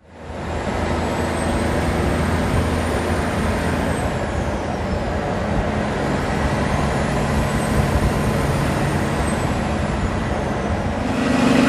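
Peterbilt semi truck running at highway speed alongside, its steady engine drone mixed with tyre and road noise. A thin high whistle rises and falls twice, and the engine note gets louder near the end.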